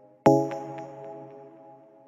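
Background music: a single sustained chord struck about a quarter of a second in, slowly dying away.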